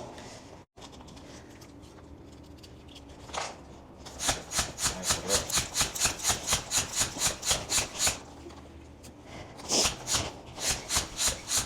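Bicycle pump being worked fast to inflate a tube, each stroke a short hiss of air, about five strokes a second. The pumping comes in two runs, starting about four seconds in and again about ten seconds in.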